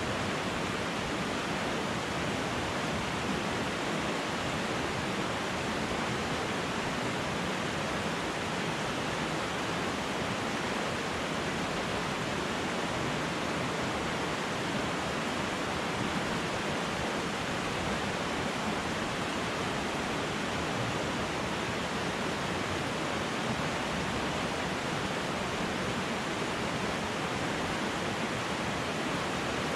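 Fast-flowing river water rushing over and between rocks, a steady unbroken rush.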